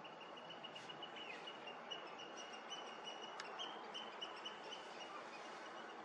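A bird calling faintly: a fast, even series of short, high notes held at one pitch, over a steady outdoor hiss.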